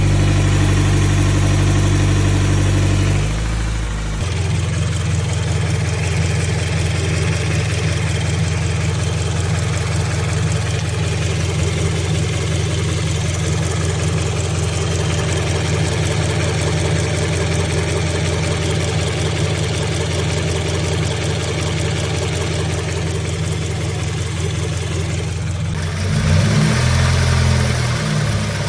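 2016 Scion FR-S's 2.0-litre flat-four engine idling steadily with a fast, even ticking, which the owner asks about as a possible problem. About four seconds in, the engine note drops and settles; near the end the sound turns brighter and the pitch shifts.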